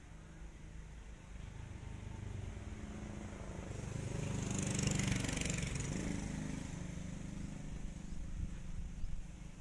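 An engine passing by, its sound swelling to a peak about halfway through and then fading.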